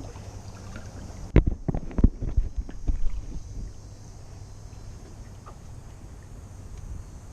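A run of knocks and thumps on a kayak for about two seconds, starting a little over a second in. Under them is a low steady rumble of wind on the microphone.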